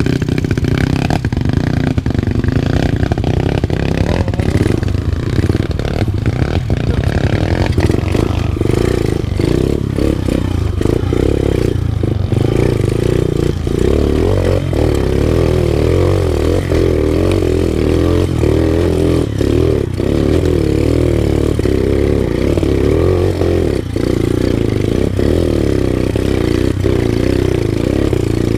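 Enduro dirt bike engine running, with repeated clattering knocks that are most frequent in the first half.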